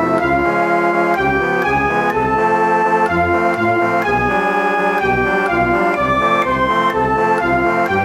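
Circus music: a keyboard melody of held, changing notes over a bouncing bass that pulses about twice a second.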